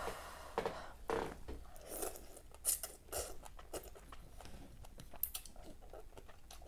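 A person slurping noodles and broth from a bowl and chewing: a series of short, irregular wet slurps.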